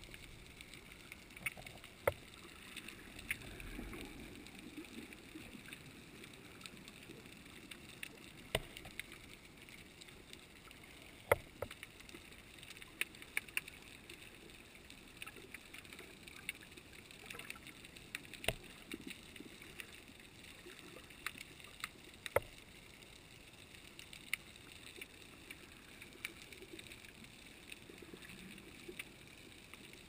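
Underwater ambience recorded through a camera housing: a steady low wash of water noise with scattered sharp clicks.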